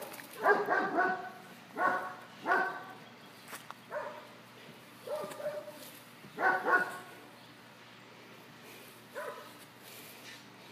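A dog giving short, pitched barks, about seven of them with irregular pauses between, growing quieter toward the end.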